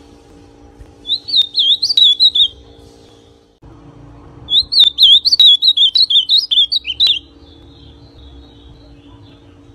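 Ultramarine grosbeak (azulão) singing two short phrases of quick warbled notes, the first about a second in and a longer one about four and a half seconds in.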